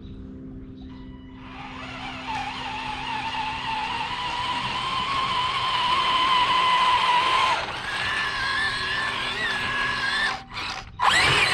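Electric drive motors of a Bwine Q111 RC tank crawler whining as it drives. The whine slowly climbs in pitch and loudness, then jumps to a higher steady pitch about eight seconds in. A louder, noisier burst comes near the end.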